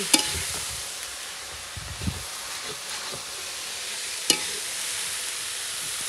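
A steady sizzling hiss, with a sharp click just after the start, a dull thump about two seconds in, and another sharp click about four seconds in.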